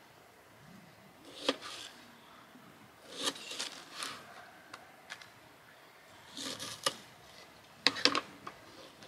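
Knife cutting vegetables on a thin plastic cutting board: four short runs of crisp cuts and taps against the board, the sharpest near the end.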